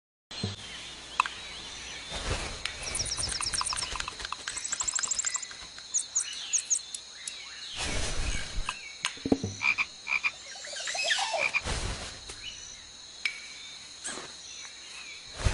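Frogs croaking: rapid trills and separate calls with sharp clicks, over a steady high-pitched drone. It is an added sound effect.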